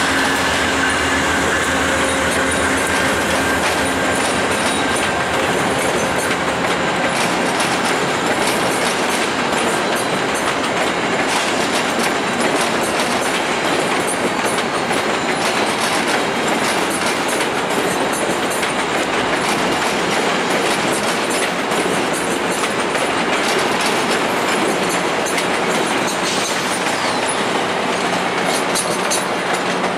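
A VIA Rail passenger train's baggage car and LRC coaches rolling slowly past over station switches and track joints: steady wheel noise with clusters of clickety-clack. A thin wheel squeal dies away in the first few seconds.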